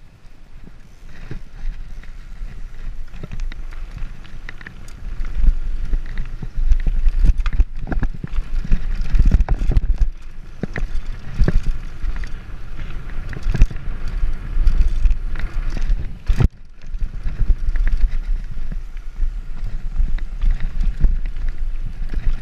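Mountain bike riding fast down a dirt trail: wind rumbling on the microphone, with frequent knocks and rattles from the bike over bumps. It starts quieter and gets louder after a few seconds.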